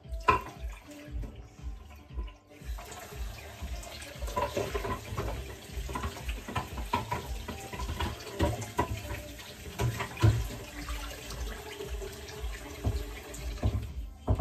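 Kitchen tap running into a sink while dishes are washed by hand, with clinks of plates knocking together. The water comes on about two and a half seconds in.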